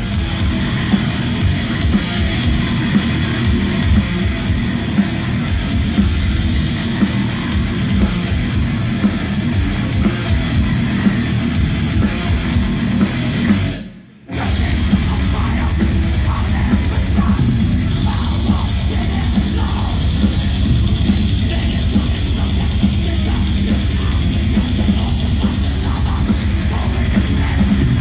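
Thrash metal band playing live: distorted electric guitars, bass and drums, loud as heard in the crowd. The sound cuts out briefly about halfway, then comes back with a fast, continuous kick-drum pattern under the guitars.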